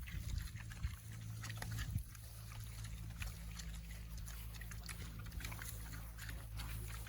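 Pigs grunting at the hog pen.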